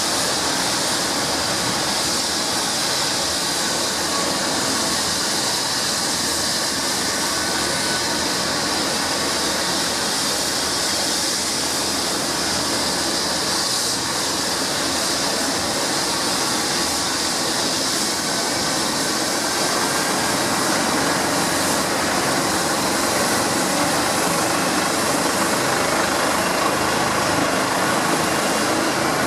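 Eurocopter EC135 helicopter's twin turbines and rotor running steadily, a constant rush with a high whine, growing a little louder in the last few seconds.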